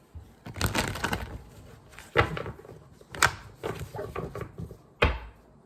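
Tarot cards being handled on a table: a rustle of cards sliding, then three sharp taps as cards are flipped and set down.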